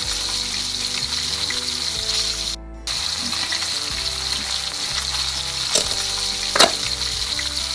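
Frying sizzle sound effect for toy cooking, a steady hiss that breaks off briefly about two and a half seconds in.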